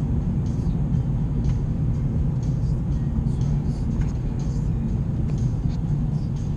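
Steady low rumble of a car's tyres and engine, heard from inside the cabin while driving on a wet, snowy road.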